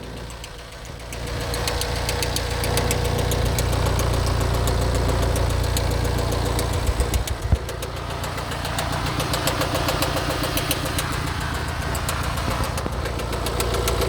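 Mini Countryman engine running steadily with a fast, rhythmic knocking tick through it, the engine knock the owner is recording. A few louder thumps come a little past the middle.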